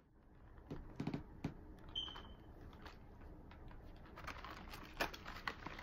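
Faint handling noise: scattered clicks and taps of plastic false-eyelash trays being moved about, over quiet room tone, with a short high-pitched beep about two seconds in.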